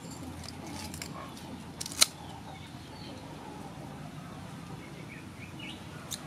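Kitchen scissors snipping through a sole's fins and head: a few short sharp clicks as the blades close, one much louder about two seconds in and another near the end.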